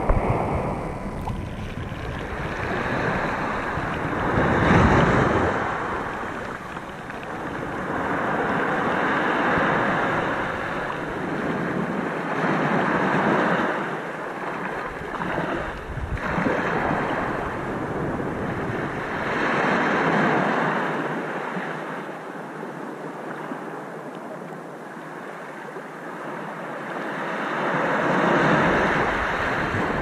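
Sea waves washing in: a steady hiss of surf that swells and fades every several seconds, with about five louder surges.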